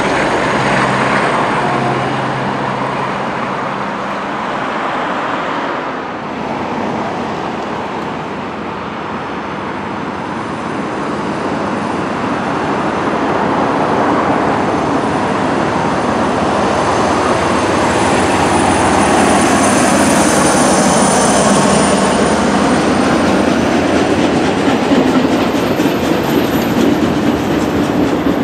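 A train running past on the line: continuous wheel-on-rail rumble with some clickety-clack, with a low steady hum in the first few seconds. It grows louder through the middle, with a faint high wheel squeal partway through.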